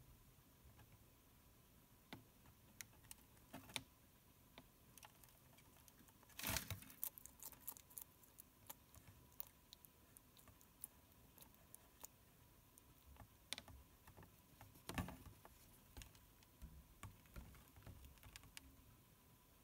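Bearded dragon chewing food: faint, irregular clicking and crunching, with two louder short bursts, one about a third of the way in and one about three-quarters through.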